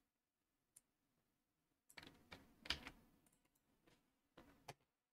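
Faint computer keyboard typing: a single key click just under a second in, then a quick run of keystrokes from about two seconds in until near the end.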